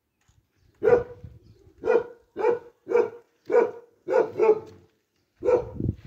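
A dog barking repeatedly: about eight short barks, roughly two a second, with a gap near the end before a last bark.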